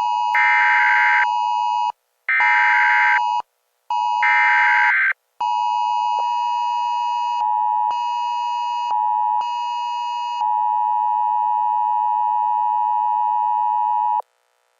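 Emergency Alert System tones: three short bursts of high warbling data tones over a steady tone, then a long steady alert tone lasting about nine seconds that cuts off abruptly.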